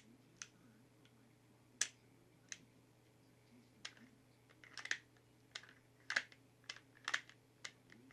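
Sig Sauer SP2022 pistol being function-tested after reassembly: its action is worked by hand, giving about a dozen sharp metallic clicks at irregular intervals, more closely spaced in the second half.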